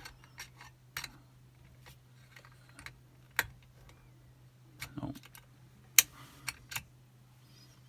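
Irregular small metallic clicks and taps of a picking wire and tension tool working the levers of a Chubb Detector five-lever lock, the sharpest click about six seconds in, over a faint steady hum.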